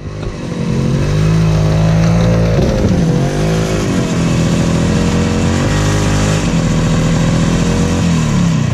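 Snowmobile engine running steadily, its pitch dropping and climbing again about three seconds in and dropping near the end as the throttle changes.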